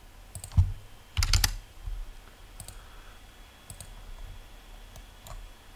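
Scattered clicks of a computer keyboard and mouse, with a louder quick cluster of key presses about a second in and single clicks spaced through the rest.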